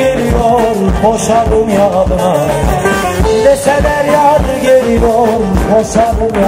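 Live Turkish band music at a dance: a male singer over a steady drum beat and accompanying instruments.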